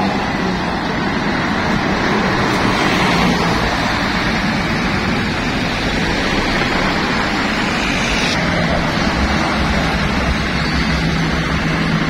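Busy road traffic with a diesel coach bus running and pulling away close by: a loud, steady rush of engine and tyre noise.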